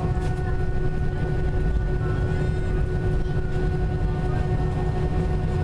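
Airbus A320 cabin noise: the jet engines and airflow make a steady low rumble with a constant whine over it, heard from inside the passenger cabin.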